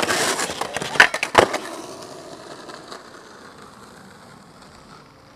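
Skateboard on asphalt: loud rolling and scraping at the start, two sharp board clacks about a second in, then the wheels rolling on and fading away.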